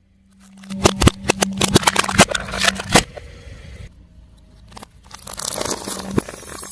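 Car tyre rolling over and crushing crunchy objects: a quick run of sharp cracks and crunches, a short lull, then more crackling near the end, over a steady low hum.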